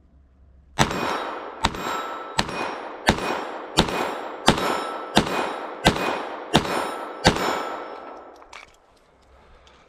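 Glock 44 .22 LR pistol firing about ten shots in steady succession, roughly one every 0.7 seconds, each with a short ringing tail. The pistol is feeding and cycling after a failure to feed.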